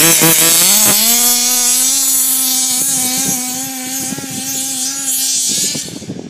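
Two-stroke petrol engine of a large-scale Baja-type RC buggy, revved up and down a couple of times, then held at a steady high pitch about a second in as the buggy speeds away. It grows slowly fainter and drops off near the end.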